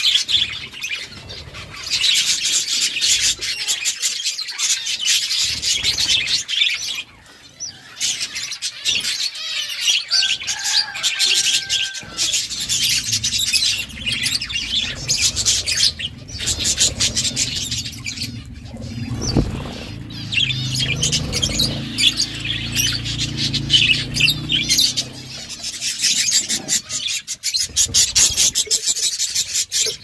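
A flock of budgerigars chirping and chattering without pause, with many overlapping high calls. A low hum sits under the chirping through the middle part.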